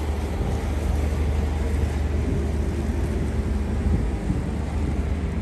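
Wind buffeting the microphone as a steady, uneven low rumble, with a faint steady hum underneath.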